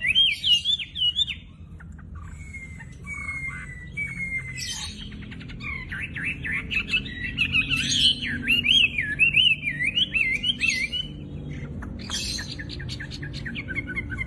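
A wambi songbird singing loud, varied phrases of quick swooping whistles. A few short, evenly spaced whistled notes give way to a dense run of warbling, then to rapid repeated notes near the end.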